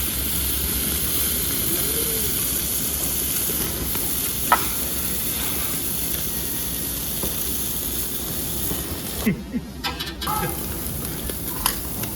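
Meat sizzling steadily on a tabletop yakiniku grill, with a sharp click about four seconds in and a few more clicks near the end as pieces are handled.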